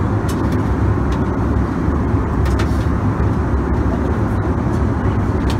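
Airbus A321 cabin noise in flight, heard from inside the cabin: the engines and airflow make a steady, even rumble. A few faint clicks sound over it.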